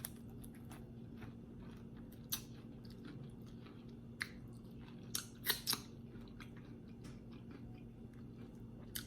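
Close-miked chewing of Popeyes fried chicken, with a few sharp crunches of the crispy breading about two, four and five and a half seconds in, over a low steady hum.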